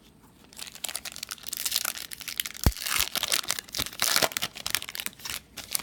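Foil wrapper of a Bowman baseball card pack crinkling and tearing as it is opened, with one sharp click partway through.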